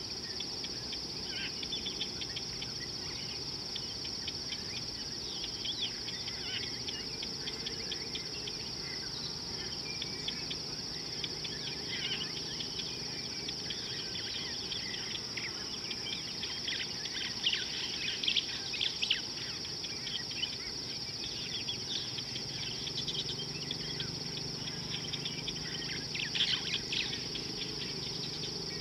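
Steady high-pitched insect chorus, with many short bird chirps scattered over it, thickest about two-thirds of the way in and again near the end, above a low steady background noise.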